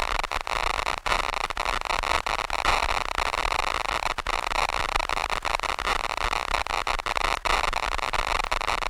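Xfer Serum 2 software synthesizer preset playing a harsh noise texture: a dense hiss with a steady high whistling tone through it, broken by many brief dropouts like stuttering digital static.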